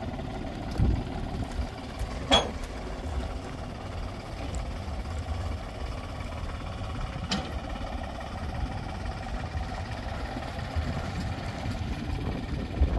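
Tractor engine running steadily at low revs, with two short sharp knocks about five seconds apart.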